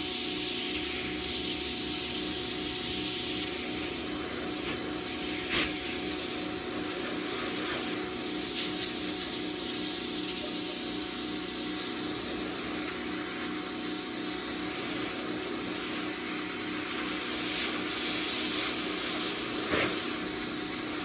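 Hyper Tough 1500 psi electric pressure washer running continuously, its motor and pump humming under the steady hiss of the water jet spraying against brick. Two brief knocks stand out, about five seconds in and near the end.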